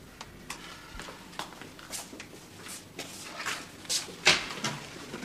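Footsteps and light knocks on a hard floor, about eight at uneven spacing.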